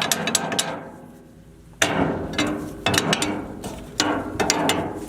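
Rapid mechanical clicking, like a ratcheting gear train, coming in bursts. The first burst fades away within the first second, then three more start abruptly and trail off.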